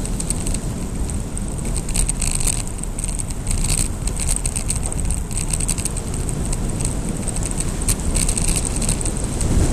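Wind rushing over an action camera's microphone on a fast bicycle descent, with tyre noise and clusters of irregular rattling clicks from the bike and camera mount shaking over the road surface.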